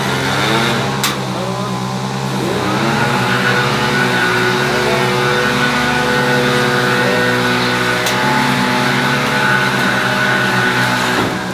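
An engine running, rising in pitch about two and a half seconds in and then holding steady.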